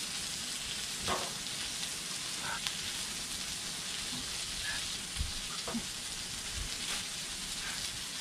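Steak sizzling steadily on a hot Blackstone flat-top griddle, with a few short snaps and knocks as charred corn husks are stripped off and handled.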